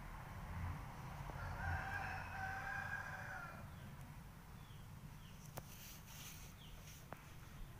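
A rooster crowing once, faint: a long held call of about two seconds, starting about a second in. Short high chirps and a couple of sharp clicks come after it.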